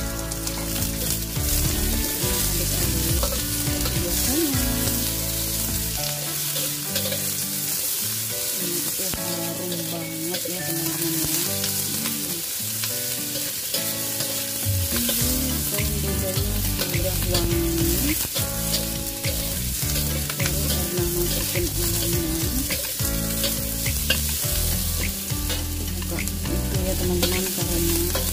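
Onion, shallot, garlic and ginger sizzling in hot oil in a wok, stirred with a metal spatula that scrapes and clicks against the pan again and again.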